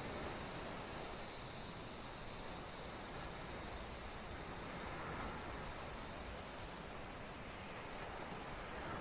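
Waves washing in a steady hiss, with a bird giving a single short, high chirp that repeats evenly about once a second, seven times.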